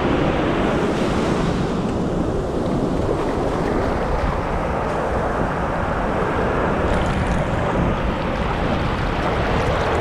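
Ocean surf breaking and washing up over the sand close by: a steady rush of white water.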